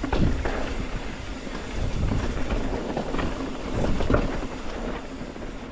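Mountain bike rolling over rocky trail, with a steady rumble and a few sharp knocks from tyres and frame hitting rock, and wind noise on the microphone.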